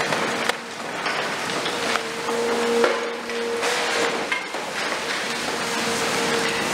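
CAT 336F long-front demolition excavator breaking up a concrete building with its demolition jaws: repeated cracks and knocks of breaking concrete and falling rubble over the machine's steady whine, which fades and returns several times.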